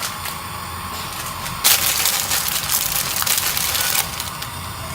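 Pan of water on the stove coming to the boil: a steady crackling hiss that swells louder for about two seconds in the middle.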